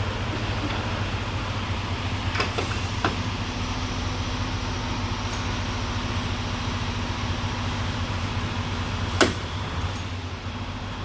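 Steady low machine hum of a working truck shop, with a couple of light metal clicks a little over two seconds in and a sharper metal clank about nine seconds in, from brake parts being handled during a brake job.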